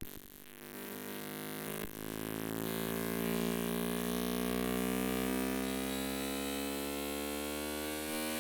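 Electronic drone with many overtones that starts abruptly and slowly glides upward in pitch over a steady low hum.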